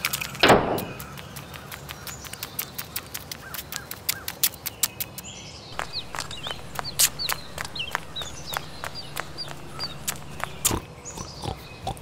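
Pigs grunting, heard as a long run of short sharp clicking pulses, with a few short high bird chirps about halfway through. A brief loud burst comes just after the start.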